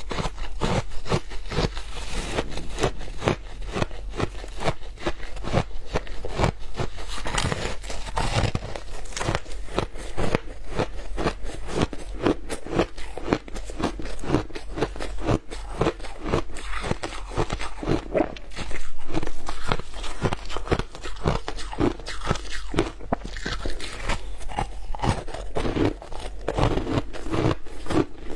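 Shaved ice being bitten and chewed, a dense, irregular crunching of ice crystals breaking between the teeth that goes on without a break, with a steady low hum underneath.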